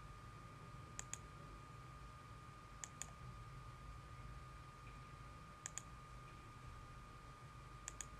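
Computer mouse button clicking in four quick pairs, about two to three seconds apart, as line points are placed in a CAD sketch. Under the clicks runs a faint steady whine and low hum.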